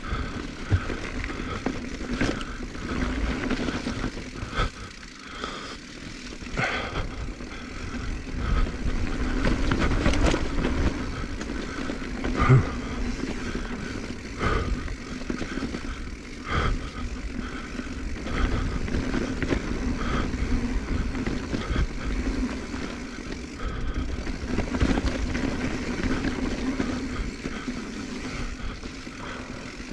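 Full-suspension mountain bike (2021 Giant Trance X 29 3) riding down a rocky dirt trail: tyres rolling over dirt and rock under a steady hum, with repeated knocks and rattles from the bike as it hits rocks and roots. The sharpest knock comes about twelve seconds in.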